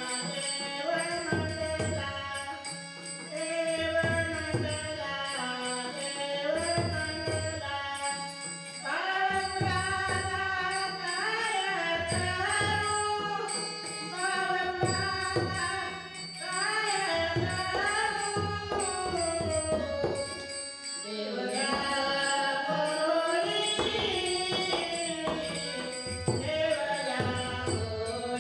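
A woman singing a Marathi devotional abhang in long, bending phrases, accompanied by a hand drum and small cymbals that keep a steady beat.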